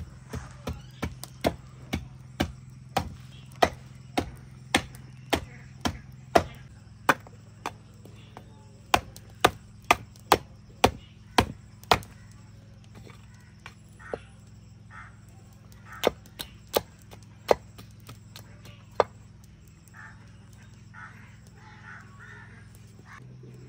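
Repeated sharp knocks, about two a second, in runs with pauses: heated trotters being struck to knock off their hoof shells.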